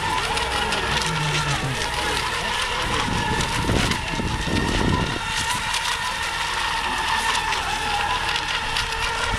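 Steady high-pitched whine of electric ECO Expert class RC racing boats running at speed on the water, over a low wind rumble on the microphone.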